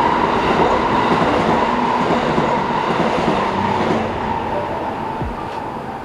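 Steady road noise inside a moving car: tyre and wind rush with a constant hum.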